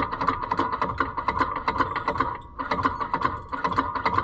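Golf cart's belt-driven starter whirring and rattling fast as it tries to crank the engine, with a brief break about two and a half seconds in. The starter can't turn the engine over well enough; he suspects a weak battery or an engine still too stiff and dry.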